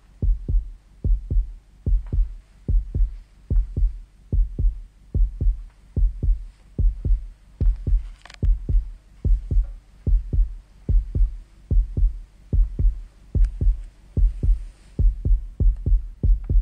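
Heartbeat: a steady lub-dub of paired low thumps, about 75 beats a minute.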